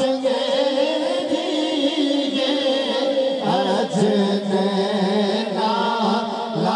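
Male voice reciting an Urdu naat, sung unaccompanied in long held notes that waver and slide in pitch, amplified through a microphone.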